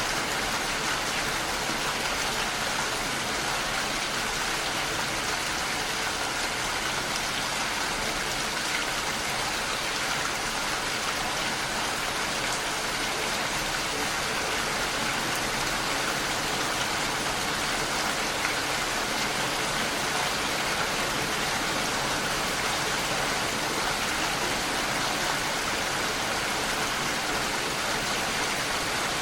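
Heavy rain falling steadily on a window, a dense even hiss of drops with no let-up.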